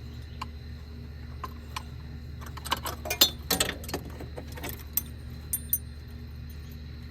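Metal tools and parts clinking and rattling against each other: a few separate clicks, then a quick cluster of clinks about three seconds in, and a couple more a little later. A steady low hum runs underneath.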